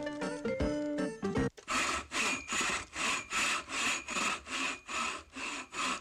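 Music with pitched notes breaks off about a second and a half in, giving way to a fast, even rasping, about four strokes a second, like back-and-forth scraping.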